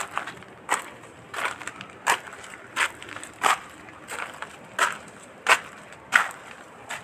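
Footsteps walking over a forest floor at a steady pace, about one and a half steps a second, each step a short crunch.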